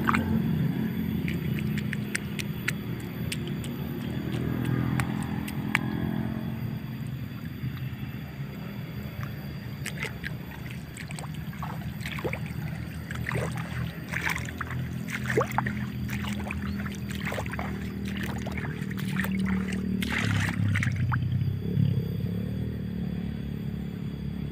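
An engine running steadily in the background with a low hum, with scattered light clicks through the middle of the stretch.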